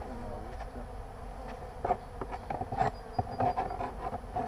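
Honey bees buzzing around an opened hive, one passing close by near the start with a rising and falling pitch. From about halfway through, a scatter of sharp knocks and clicks.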